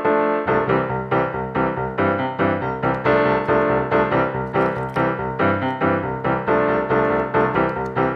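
Background music: a bright keyboard tune with a steady beat of notes and a bass line.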